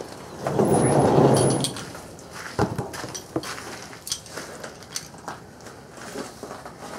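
Wooden board door dragging open on its hinges for about a second, with a rough low creak. Scattered light knocks and clicks follow.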